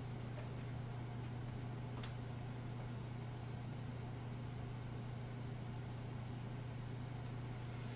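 A steady low hum over even background hiss, unchanging throughout, with one faint brief click about two seconds in.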